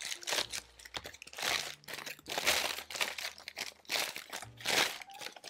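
Crumpled parchment paper crinkling in irregular bursts as it is pulled open and stretched out by hand, ready to line a baking pan.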